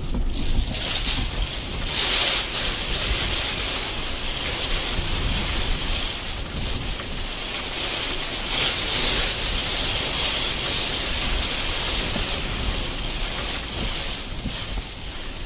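Storm-force wind gusting against the microphone: a heavy low rumble under a rushing hiss that swells and eases, strongest about two seconds in and again past the middle.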